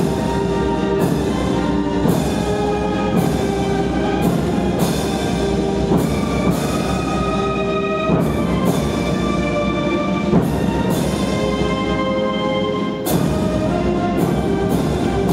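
A military band plays a slow, solemn anthem. Held brass chords are marked by drum and cymbal strikes about once a second.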